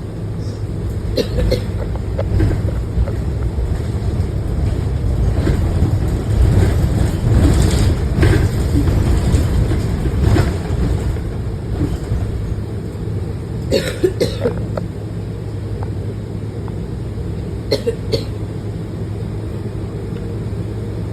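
A passenger coughing on a moving bus: a few short coughs near the start, a double cough about two-thirds of the way through and another pair near the end, over the steady low rumble of the bus running.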